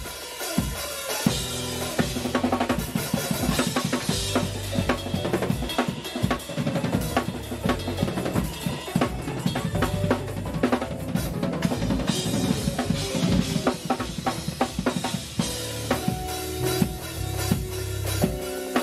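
Drum kit played fast and dense: snare, bass drum and cymbals struck in quick runs without a break.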